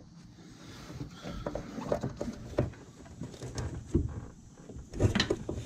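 Scattered knocks, taps and scrapes of hands and tools working at a stuck spin-on oil filter in an engine bay, the sharpest knocks about two and a half, four and five seconds in.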